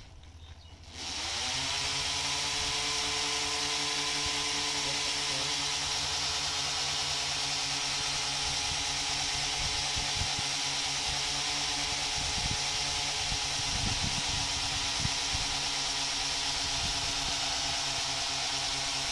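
Small solar-powered electric spray pump kicking in about a second in, its hum rising in pitch and then running steady. Over it is the continuous hiss of the pressurised water jet from the spray gun.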